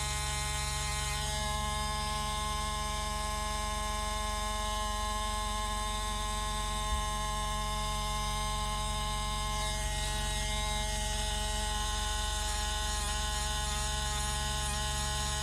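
A powered fossil preparation tool running steadily with an even buzzing hum as matrix is worked back from a nautilus shell, with a single light knock about halfway through.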